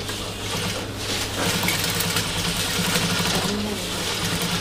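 Industrial lockstitch sewing machine stitching a seam through fabric: a steady motor hum, then about a second and a half in the needle starts running, a fast, even whir that keeps going.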